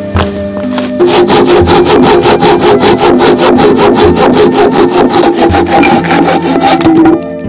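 Wood being sawn by hand in quick, even strokes. The sawing starts about a second in and stops suddenly near the end, over soft background music.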